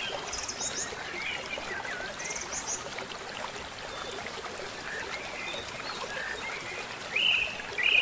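Small mountain stream burbling and trickling steadily, with small birds chirping and giving short high trills over it.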